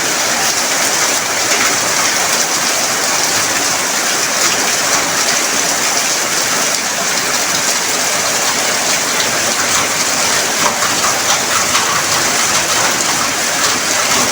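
Heavy rain pouring down steadily, a dense, even hiss of falling drops that keeps up without a break.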